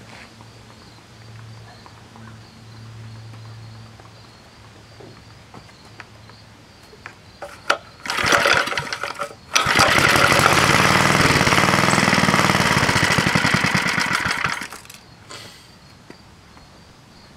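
Briggs & Stratton Golden Boy 2 hp single-cylinder engine starting. It fires briefly about eight seconds in, then catches and runs steadily for about five seconds before it stops. It starts and stops because it is starved of fuel: the owner blames a gummed-up screen or clogged pickup tube in the varnished tank.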